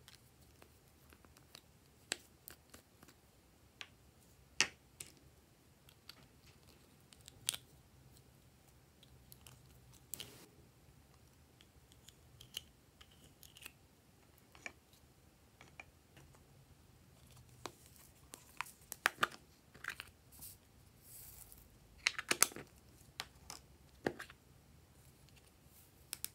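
Scattered small clicks and taps of hands handling plastic slime pots and dropping glitter and add-ins onto trays of glossy slime, with a busier run of clicks and crinkles near the end.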